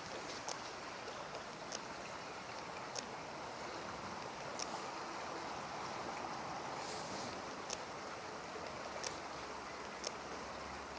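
Steady rushing of river water flowing past, with a few faint scattered ticks and a short hiss about seven seconds in.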